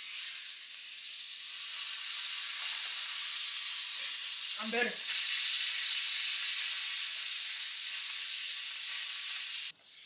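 Pieces of meat sizzling in a small skillet on an electric coil stove, with a utensil stirring them. The hiss grows louder about a second and a half in and cuts off suddenly near the end.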